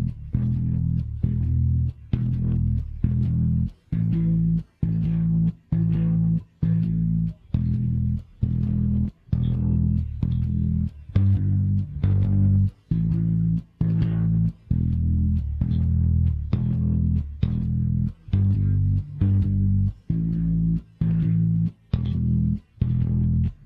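Isolated electric bass guitar track playing a repeating line of sustained low notes, each broken off by a short gap, about one note change a second.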